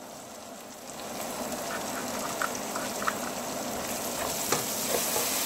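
Onions, green chillies and ginger-garlic paste frying in oil in a metal pot: a steady sizzle that grows a little louder after about a second. A few light taps of the spoon against the pot come as it is stirred.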